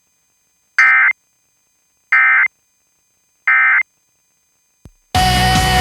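Emergency Alert System End-of-Message code heard over FM radio: three short bursts of digital data tones about a second apart, marking the close of the monthly test. A faint click follows, then music cuts in loudly about five seconds in.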